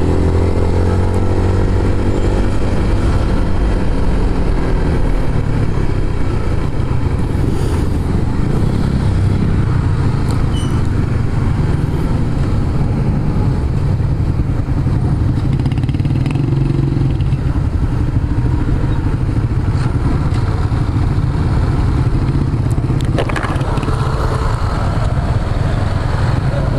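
Motorcycle engine running under way. The engine note eases down over the first few seconds, then holds a steady drone.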